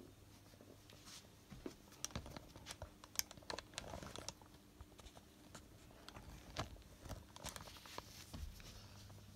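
Faint, scattered rustles and clicks of handling noise as a hand-held phone camera is moved about, over a faint low steady hum.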